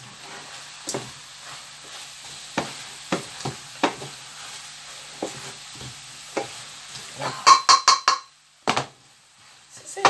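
Sausage, bacon and spinach stir fry sizzling in a frying pan as it is stirred with a wooden spatula, the spatula knocking against the pan now and then. Near the end comes a quick run of ringing clinks against the pan, and then the sound goes almost quiet for about a second and a half.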